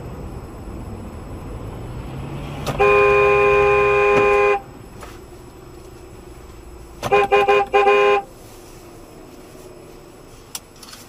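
Car horn: one long blast of nearly two seconds, then four quick short toots about three seconds later, over steady engine and road noise heard from inside a car.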